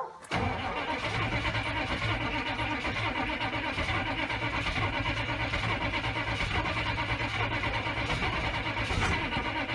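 Starter cranking a cold GM 6.5-litre turbo-diesel V8 quickly and steadily for about nine seconds without the engine catching: a hard cold start after a glow-plug cycle. The cranking starts a moment in and stops near the end.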